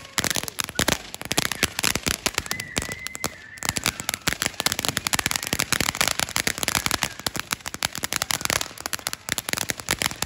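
Crackling ground fountain firework spraying sparks on the pavement: a dense, continuous run of sharp crackles and pops that thins out for a moment about three and a half seconds in.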